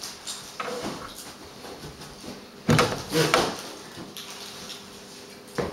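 A rubber balloon being batted by hand: a few short, soft taps, the loudest about three seconds in.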